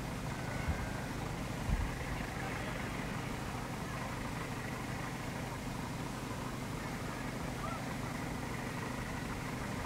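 City street ambience on an old tape recording: a steady low rumble of traffic, with two brief low thumps in the first two seconds.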